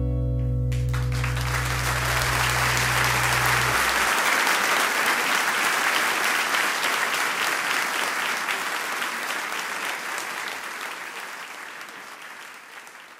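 Audience applauding at the end of a live song, over the last chord, which rings out and stops about four seconds in. The applause then fades out near the end.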